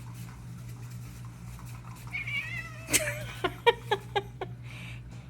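A cat vocalizing: a wavering call about two seconds in, then a sharp click, then a rapid run of about five short chirping meows.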